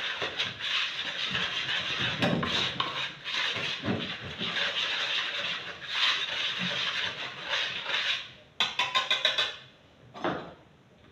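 Fingers mixing baking powder into dry flour in a plastic bowl: a steady rustling scrape through the flour, then a quick run of light taps near the end.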